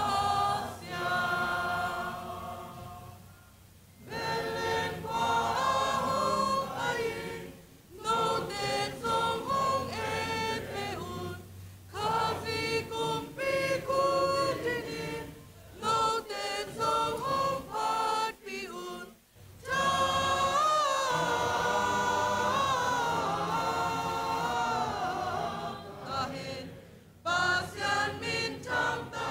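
Youth choir, mostly young women, singing a Zomi-language song in phrases, with short breaks between lines.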